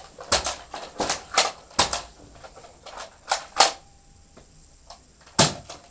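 Nerf blasters being primed and fired: a quick irregular series of sharp plastic clicks and knocks, most of them in the first two seconds, with a last louder one near the end.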